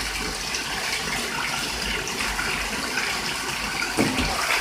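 Tap water pouring steadily into a filling bathtub, with a goose splashing in it; a sudden louder splash comes about four seconds in.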